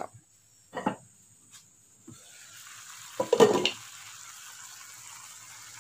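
Raw jackfruit pieces simmering in turmeric water in a pan, a steady bubbling hiss that starts about two seconds in, with one brief louder sound a little past three seconds.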